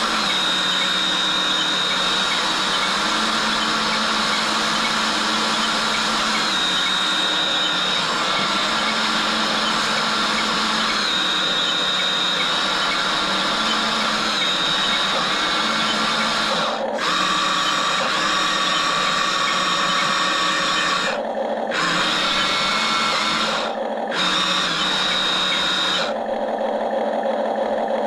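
Small electric motors of an RC excavator whining steadily as its arm and bucket are driven, the pitch stepping up and down as the controls change, with a few brief breaks in the sound near the end.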